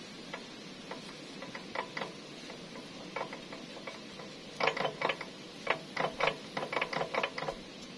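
Cast-iron flange cover clicking and clinking against the steel axle shaft and the gearbox housing as it is slid on and worked into place by hand. The sharp metal clicks come sparsely at first, then thick and fast through the second half.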